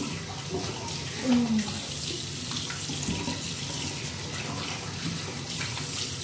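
Water running from a tap into a sink while hands splash water onto a face to rinse it. A brief sound of the woman's voice about a second in.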